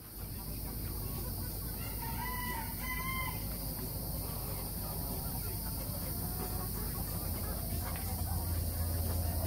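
Young Silkie cockerels calling: two short, clear calls close together about two seconds in, then softer clucking and chirping among the flock.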